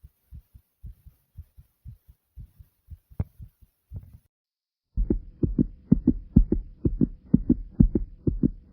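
Pounding heartbeat: low lub-dub thumps in pairs, about two beats a second. It breaks off about four seconds in, and after a brief silence a louder, quicker thumping heartbeat starts with a faint steady hum under it.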